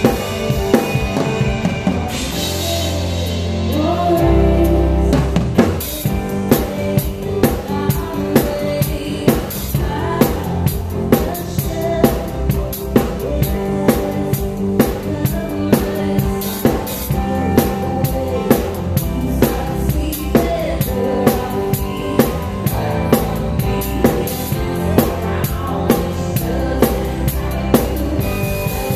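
Live band music heard close to the drum kit: kick, snare and Zildjian cymbals over bass and keys. A cymbal crash about two seconds in, then the drums settle into a steady groove with sharp, regular hits.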